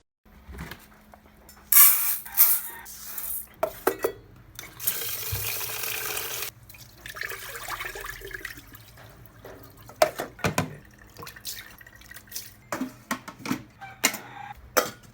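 Water running from a tap for about a second and a half, amid scattered knocks and household clatter.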